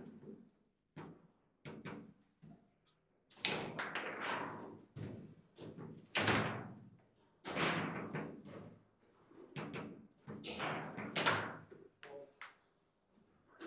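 Table football (foosball) table in play: the ball knocked by the players' figures and rebounding off the table, with the rods slamming, as an irregular run of sharp knocks and slams, the loudest strikes in the middle stretch.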